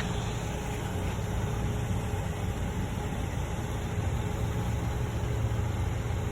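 Steady low rumble of a car idling, with a faint steady hum above it.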